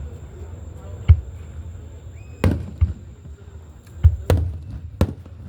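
Aerial fireworks shells bursting: about six separate bangs over a few seconds, some deep booms and some sharper cracks.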